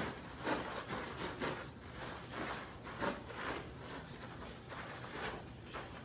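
Irregular swishes and soft thuds from two karateka kicking and stepping back and forth on foam mats: gi fabric snapping, bare feet landing, and sharp breaths out on the kicks.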